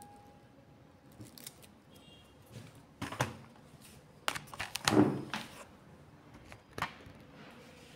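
Scattered light clicks and knocks of objects being handled in a small room, loudest about five seconds in.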